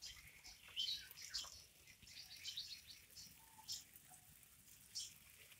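Small birds chirping faintly: many short, high chirps and calls scattered irregularly, some sliding down in pitch.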